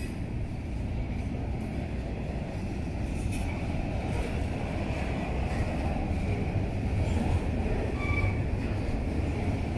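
Double-stack intermodal container train rolling past: a steady rumble of the container well cars' wheels on the rails, with a brief faint high squeal about eight seconds in.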